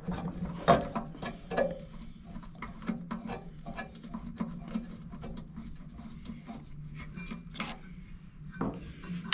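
A screwdriver backing out the small Phillips screws that hold the clump crusher in a Mythos Basic espresso grinder: a string of small clicks and scrapes of tool on screw, with a few louder clicks.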